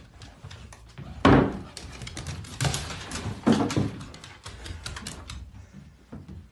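Dog's claws clicking and scrabbling on a hardwood floor as it runs about in play, with a few louder thumps. The clicking thins out near the end.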